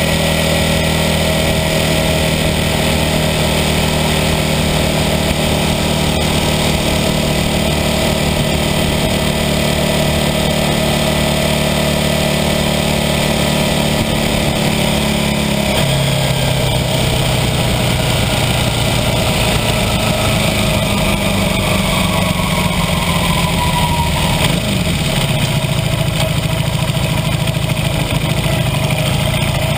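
1982 Honda CB400N Superdream's air-cooled parallel-twin engine running on the road, with wind rushing past the fork-mounted microphone. The engine note drops suddenly about halfway through, then falls again near the end as the bike slows into a gravel car park.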